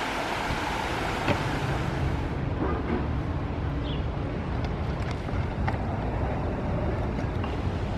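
Creek water running over rocks, cutting off suddenly about two seconds in; then a low rumble of stunt-scooter wheels rolling on concrete, with a few sharp clicks.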